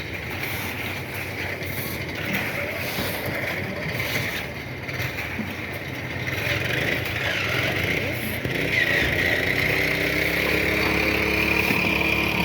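An engine running, its pitch rising about eight seconds in and then holding steady as it gets a little louder, over a mixed outdoor background noise.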